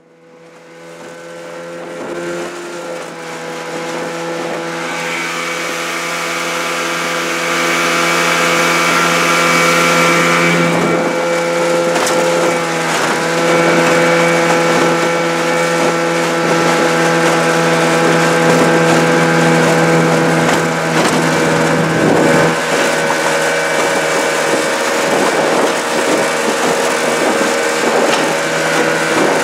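Small two-stroke outboard motor running at a steady cruising speed, pushing an aluminium boat across open water. It fades up over the first several seconds, then holds an even pitch.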